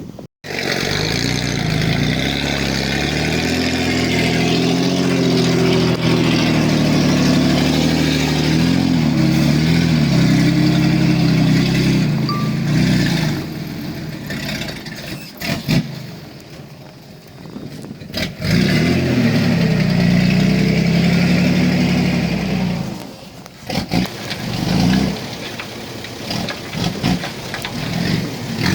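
Heavy diesel engine of earthmoving equipment running and revving, its pitch rising and falling with the load. The engine sound drops away for a few seconds about halfway through and again near 23 seconds.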